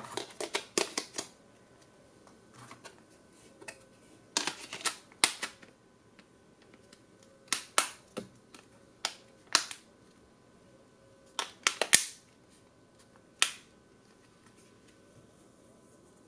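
Sharp plastic clicks and taps from an LG V10 smartphone being handled, its removable battery fitted and back cover pressed into place. They come in short clusters separated by quiet stretches, and the loudest come about two-thirds of the way through.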